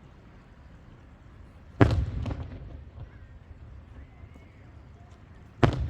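Two aerial firework shells bursting, about four seconds apart, each a sharp bang that trails off over a second or so.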